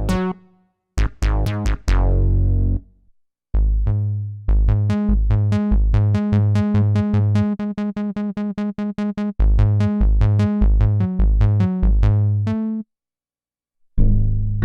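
Kurzweil K2vx synthesizer presets being played: short notes that die away over a deep bass, with a quick run of repeated notes in the middle. The playing stops briefly about a second in, near three seconds, and for about a second near the end.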